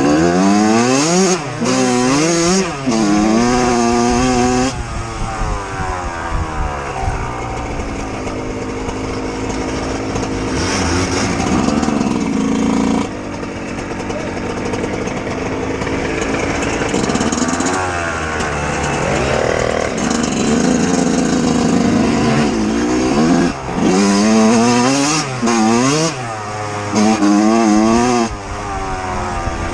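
Two-stroke 125 dirt bike engine on the throttle. Near the start and again near the end it revs up and drops back several times in quick succession, as it shifts through the gears. In the middle it holds steadier, lower revs.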